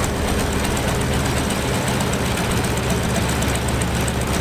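Stinson L-1's nine-cylinder Lycoming R-680 radial engine running steadily, now fitted with an overhauled magneto.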